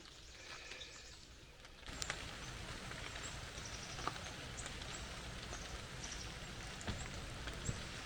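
Leftover rainwater dripping from forest leaves after a shower: a steady patter of scattered drips that grows louder about two seconds in.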